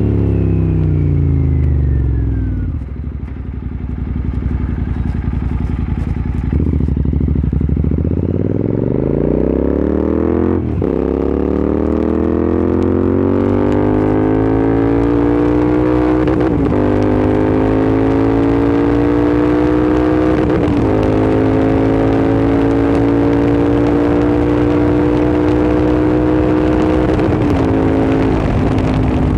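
Royal Enfield Continental GT 650's parallel-twin engine through a Red Rooster aftermarket exhaust. The revs fall away over the first few seconds, then climb from about eight seconds in, with a brief break near eleven seconds. After that the revs rise slowly and settle into a steady drone, with a few short breaks.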